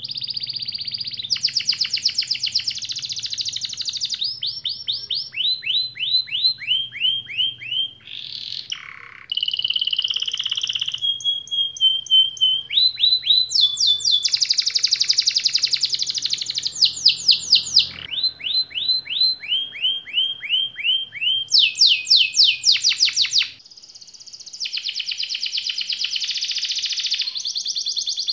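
Domestic canary singing a long, continuous song of rapid rolling trills. Each phrase is a train of quick down-slurred notes repeated at a different speed and pitch, with a held whistled tone partway through. After a break about 23 seconds in, a second canary's rolling song carries on.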